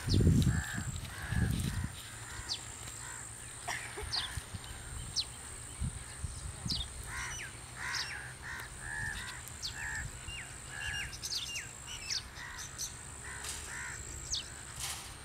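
Crows cawing over and over in short runs, with smaller birds chirping thinly above them. A few loud low rumbles in the first two seconds, and a faint steady low hum underneath.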